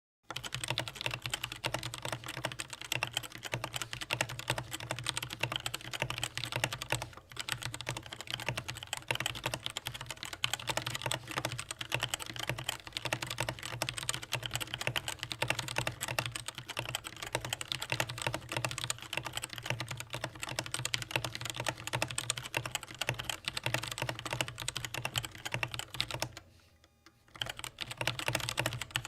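Mechanical keyboard with TTC Black linear switches (DREVO Gramr V2 TE) being typed on rapidly and continuously, a dense run of key clacks with one brief pause near the end.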